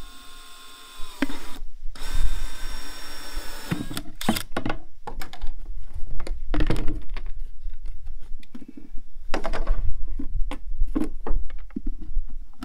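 Cordless drill with a 7/8-inch hole saw whining as it cuts through the bottom of a plastic bucket. It stops about a second in, runs again for about two seconds, then gives way to irregular knocks and scraping as the plastic bucket is handled.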